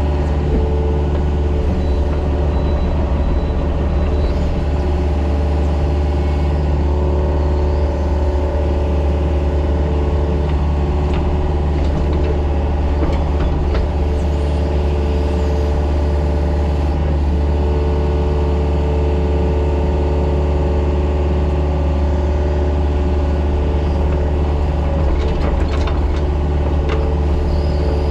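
Excavator's diesel engine running steadily while the machine works, with a few brief clanks around the middle and near the end.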